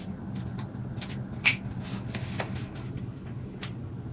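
Scattered light clicks and taps from a person moving about, over a steady low hum, with one sharper click about one and a half seconds in.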